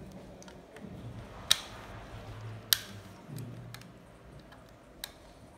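Small screwdriver backing screws out of the plastic underside of a PC speaker's amplifier unit. Quiet handling and scraping, with two sharp plastic-and-metal clicks about a second apart and a lighter click near the end.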